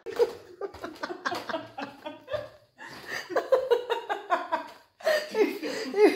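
People laughing and giggling in a run of short bursts, broken twice by brief gaps.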